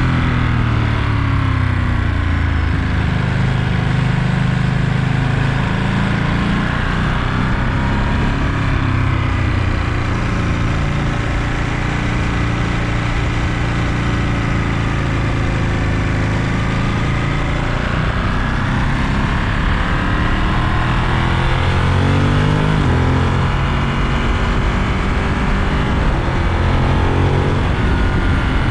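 Ducati Monster 937's 937 cc Testastretta L-twin engine and exhaust under way, its pitch rising and falling repeatedly as the bike accelerates and slows through the gears.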